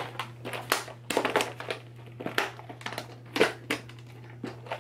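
A clear plastic tackle box being pulled out of a fabric tackle bag's pocket and handled: an irregular run of plastic clicks and knocks, with rustling of the bag.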